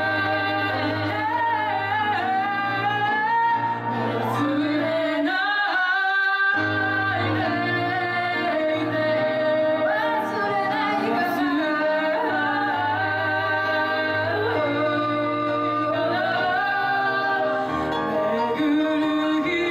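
Live song: a voice singing a melody over instrumental accompaniment. The low bass notes drop out for about two seconds roughly five seconds in, then come back.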